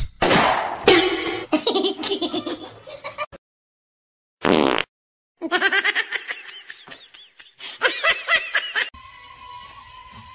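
Bursts of laughter and excited voices in two stretches with a short silent gap between. From about nine seconds in, the steady high whine of a small quadcopter drone hovering takes over.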